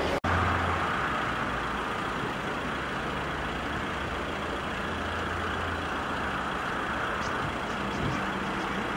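Road traffic going past: a steady rush of tyre and engine noise, with a low engine hum swelling briefly near the start and again about five seconds in.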